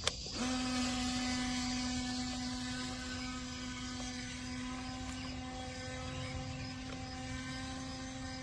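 Brushless motor of a Cheerwing UDI023PRO RC jet boat running at speed 2 with a steady, even-pitched whine that starts about half a second in, just after a short click.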